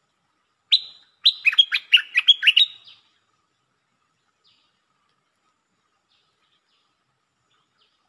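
Nok dok taeng songbird calling once about a second in, then a quick run of about eight sweeping notes that stops around three seconds in.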